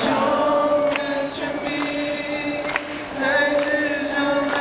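Voices singing into a microphone over a PA system, with long held notes that step in pitch.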